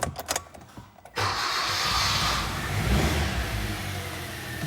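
Hyundai Solaris 1.4 G4FA four-cylinder petrol engine being started after a rebuild: a few light clicks, then about a second in the starter cranks and the engine catches, flaring up and settling into a steady idle.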